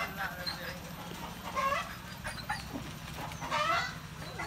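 Newborn puppies squealing and whimpering, short high whines that bend up and down, with louder squeals about one and a half and three and a half seconds in.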